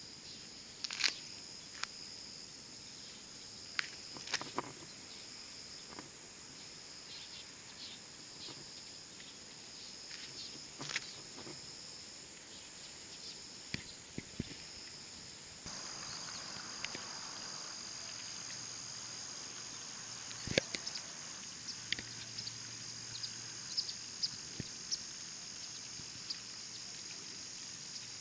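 Crickets trilling steadily at two high pitches, with scattered sharp clicks. The chorus grows a little louder just past halfway.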